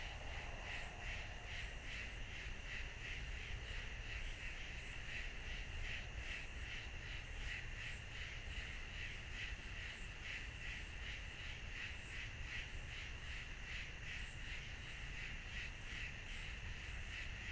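A steady, rhythmic insect chorus, such as katydids or crickets, pulsing evenly without a break, over a faint low rumble from the trail camera's microphone.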